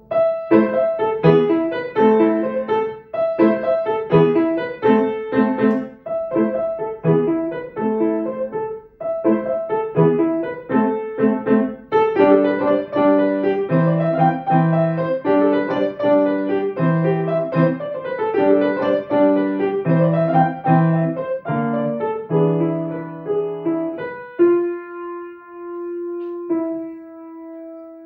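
Grand piano played solo: a lively run of short, detached chords and quick note figures, growing busier about halfway through, then settling on a held note for about three seconds near the end before another chord.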